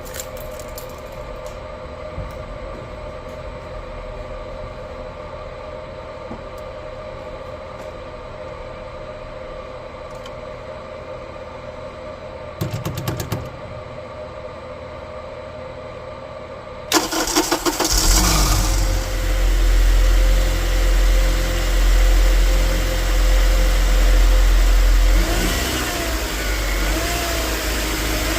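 A car engine starting about two-thirds of the way in, after a steady hum and a brief burst. It then runs with loudness swelling and dipping unevenly: the sputtering noise from the engine area.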